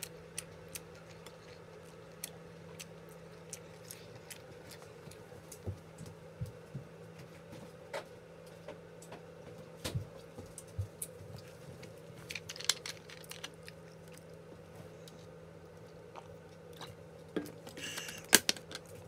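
Eating sounds close to the microphone: soft chewing with scattered small clicks and taps, over a steady low hum. Near the end, a short cluster of louder knocks and rustling.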